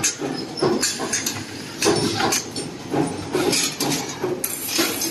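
Servo 2D wire bending and welding machine working: repeated irregular metal knocks and clanks mixed with short hissing bursts, several a second.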